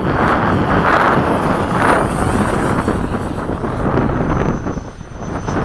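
Electric ducted-fan RC jet flying past, a rushing noise with a thin high whine that slides in pitch, heavily mixed with wind buffeting the microphone. The sound dips briefly near the end.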